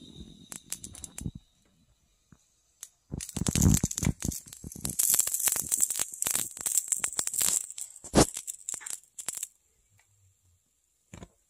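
Rapid crackling and sizzling from a small open flame burning in a shallow metal tin. It starts about three seconds in and lasts about six seconds, with a sharp crack near the end.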